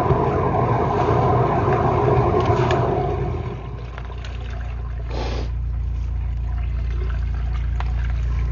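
High-pressure drain jetter running, its water jet hissing and rushing in the pipe. About three and a half seconds in the jetting noise drops away, leaving the jetter's motor humming steadily low, with a brief whoosh a little later.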